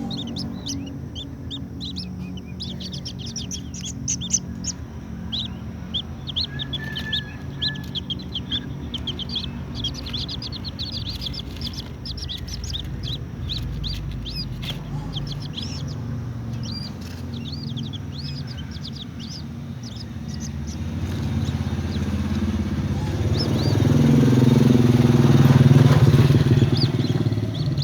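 A white-breasted waterhen peeping: many short, sharp, high calls in quick succession over a low steady hum. From about 21 seconds in, a motor vehicle's engine grows louder, passes and fades near the end.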